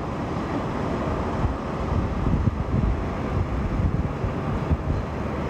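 Wind buffeting the microphone: a steady rushing noise with irregular gusty low rumbles.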